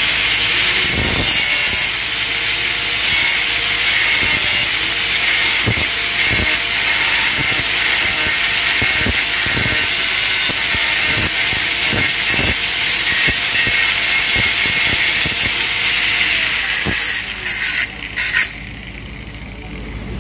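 Electric angle grinder grinding a stainless steel pipe weld joint, a loud steady grinding noise. About 17 seconds in it gives way to three short bursts, then stops near the end.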